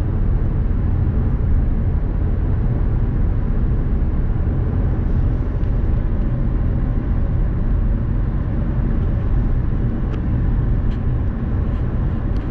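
Steady low road and engine rumble inside a moving vehicle's cabin, with a few faint ticks near the end.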